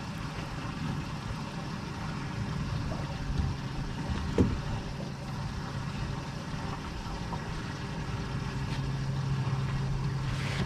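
Boat motor running steadily with a low hum that grows a little stronger near the end, and a single knock about four seconds in.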